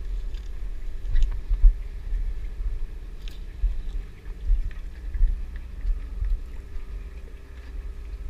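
Wind buffeting the microphone in gusts over a steady machine hum from the fishing boat, with a few light clicks.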